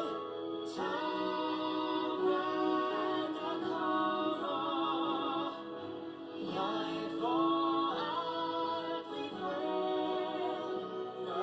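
A film song sung in Danish with orchestral accompaniment, played through a television's speakers: voices hold long notes with vibrato.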